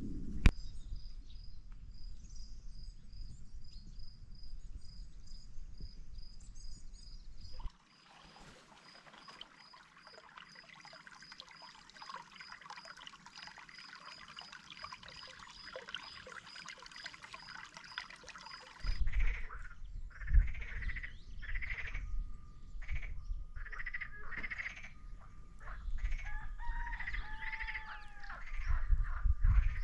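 Countryside ambience in spring: a high peep repeating a few times a second and, from about 8 seconds in, a dense chorus of small calls; after about 19 seconds this gives way to birds chirping and calling, one call gliding, over a low gusty rumble.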